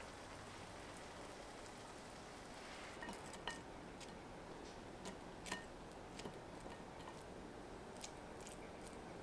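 Light clicks and clinks of kitchen utensils against dishes, several scattered from about three seconds in, the sharpest one about halfway through, over a faint steady hiss.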